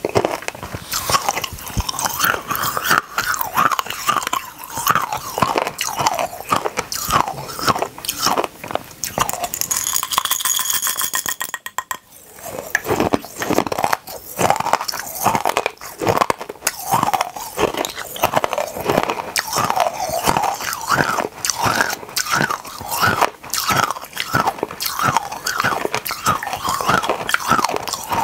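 Close-up crunching and chewing of small hard mini candies: a dense run of crisp crunches, with a short pause about twelve seconds in.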